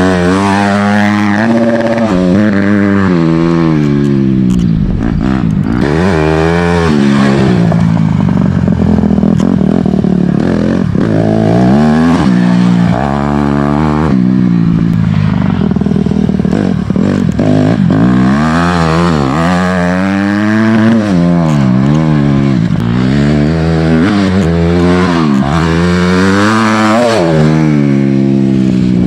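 Dirt bike engine ridden hard around a track, its pitch repeatedly climbing under throttle and dropping back as the rider shifts and rolls off. The revs level out for a stretch in the middle before the rapid up-and-down sweeps return.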